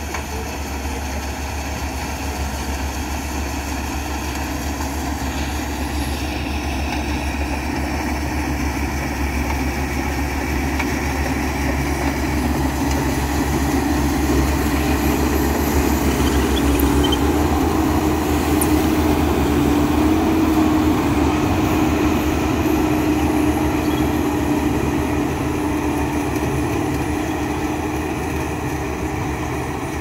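Tracked rice combine harvester running as it cuts standing rice: a steady engine drone with a held hum, getting somewhat louder through the middle as the machine passes close, then easing off.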